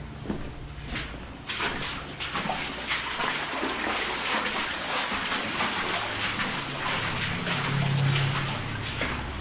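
Water splashing and sloshing, an irregular, busy patter that grows louder about a second and a half in.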